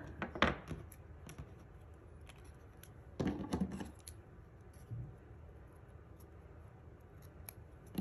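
Paper snips cutting a small strip of cardstock: a few quiet, short snips with light clicks of paper and tools being handled.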